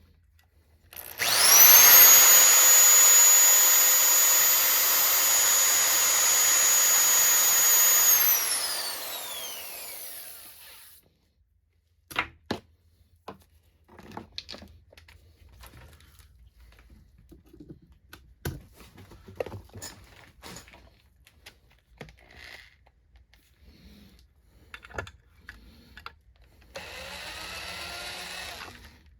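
Power drill turning a screw extractor bit against a broken bolt. It runs at a steady high whine for about seven seconds, then spins down with a falling pitch. Scattered clicks and knocks follow, and a shorter, quieter drill run comes near the end. The extractor is failing to get a bite in the broken bolt.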